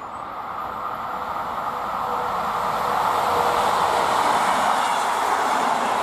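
A train approaching on the line, its running noise of wheels on rails growing louder over the first three seconds or so and then holding steady as it passes close by.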